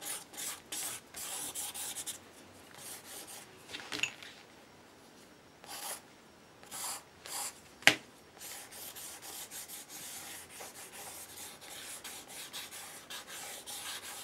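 Charcoal drawing tool rubbing and scratching across paper in quick back-and-forth strokes, in short bursts at first and then a steady run of rapid strokes near the end. One sharp tap about halfway through.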